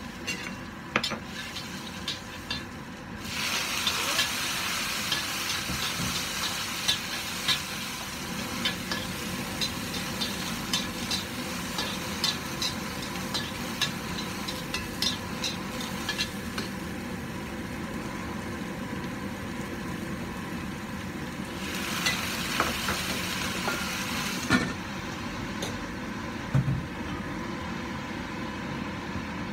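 Green vegetables sizzling in a hot wok, stirred with a metal spatula that clicks and scrapes against the wok. The sizzle comes up loudly a few seconds in, dies down past the middle, flares briefly again, and a sharp clank follows near the end, all over a steady low rumble.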